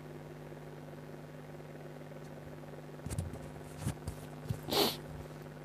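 Steady low electrical hum with no speech. From about three seconds in come a few soft knocks, and near the end a short rustling burst, typical of handling noise on the recording.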